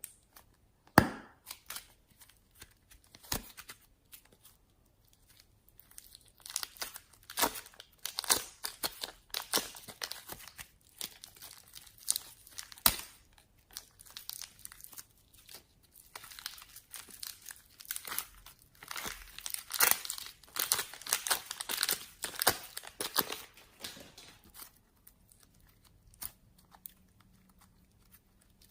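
Slime being kneaded, stretched and pressed by hand, giving sticky crackling pops. A few separate pops come in the first seconds, then dense crackling runs until it eases off near the end.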